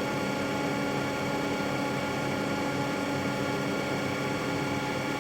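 Elliott 903 computer's engineer's loudspeaker giving a steady, repetitive buzzing tone while the machine runs a tight computing loop, over the steady hum of the machine.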